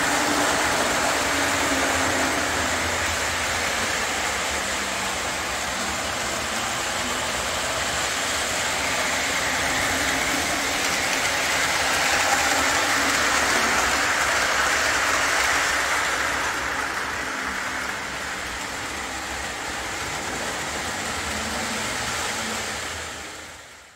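Model trains running on a layout: a steady rumble and hiss of wheels and motors on track, fading out at the very end.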